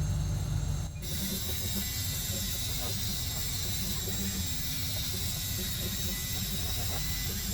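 Laser cutter running as it cuts clock hands from 1/8 inch plywood: a steady hiss with faint fixed high whines sets in about a second in, over a constant low hum.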